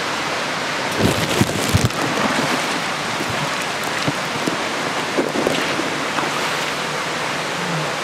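Stream water rushing steadily over rocks in a narrow rock ravine, with a few low thumps between one and two seconds in.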